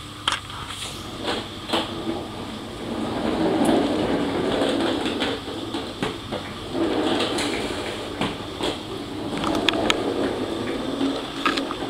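Small plastic wheels of a child's swing car rolling over a hard wooden floor: a rumble that swells and fades as the car is wiggled along, with scattered clicks and knocks.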